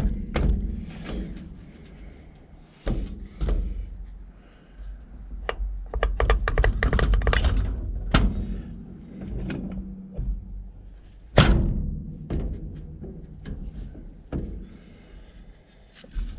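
Irregular metal knocks, clunks and taps as starter motor parts are handled and fitted together during reassembly, the loudest clunk about two-thirds of the way in.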